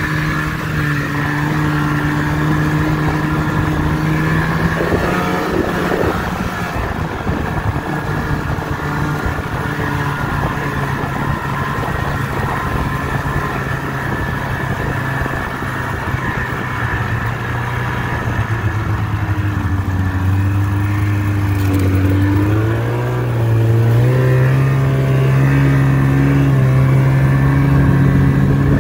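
Snowmobile engine running under way on a groomed trail, with the hiss and rumble of the track and the ride. The engine note drops about five seconds in, runs lower through the middle, then climbs and grows louder as the machine accelerates near the end.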